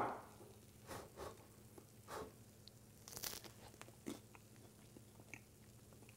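A cracker scooping hot artichoke dip from the casserole, then being bitten and chewed: a sharp crunch right at the start, the loudest sound, followed by a few faint, scattered crunches.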